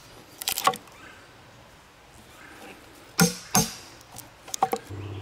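Wood chisel knocked into a log while cutting a notch: two sharp knocks near the start, two more about three seconds in, then a few light taps. A steady low hum starts near the end.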